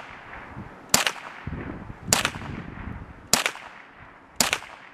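ISSC MSR MK-22 semi-automatic .22LR rifle firing four single shots, evenly spaced a little over a second apart, each with a short echo trailing after it.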